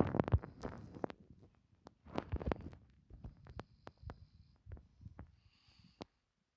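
A man snoring in his sleep: a rattling snore at the start and another about two seconds in, then weaker snoring breaths.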